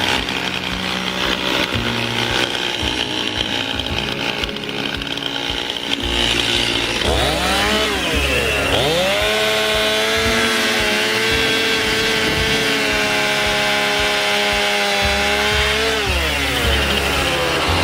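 Chainsaw engine running and cutting wood on a freshly sharpened chain. The engine dips and climbs in pitch about eight seconds in, holds a steady high pitch for several seconds, then drops off near the end.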